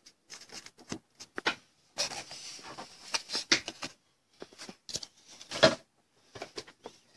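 Hands handling a cardboard trading-card box and the cards inside: a run of light clicks, taps and scrapes, with a longer rubbing scrape about two seconds in.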